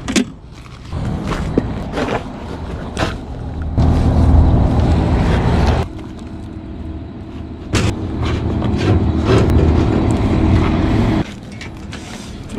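A low rumble with a steady hum, swelling and dropping twice, under a few sharp metallic clicks of hand tools: a wrench on the gas supply pipe union and a screwdriver on the unit's sheet-metal panel screws.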